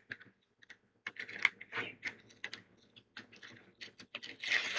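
Foil wrapper of a Pokémon card booster pack crinkling and crackling as it is handled and pulled open, in quick irregular clicks, with a louder crinkling burst near the end.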